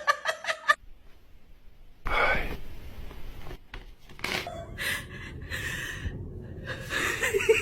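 A person's breathy vocal sounds: a quick run of short laughing bursts at the start, then a loud gasp about two seconds in, followed by more scattered breaths.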